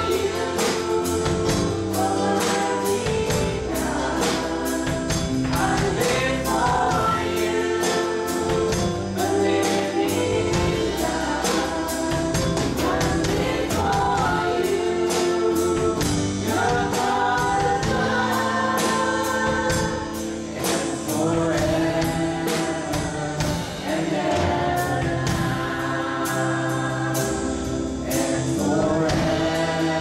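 Live worship band playing a contemporary praise song: several voices singing together over acoustic and electric guitar, keyboard and a drum kit keeping a steady beat.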